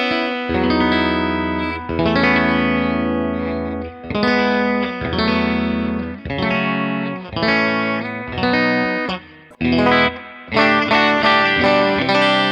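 Electric guitar played through a Rocknroll Amps JK15, a 15-watt combo with two EL84 valves, in its clean mode: a run of chords, each ringing out for about a second, with a short lull about three-quarters of the way through.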